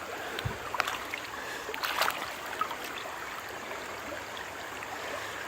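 Creek water running steadily after heavy rain, with a few short, sharp clicks and knocks about one and two seconds in.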